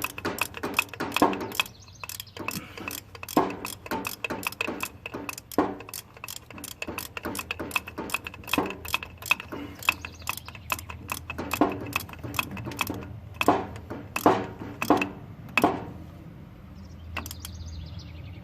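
Hand ratchet wrench clicking in quick runs, mixed with sharp knocks of metal tools and parts.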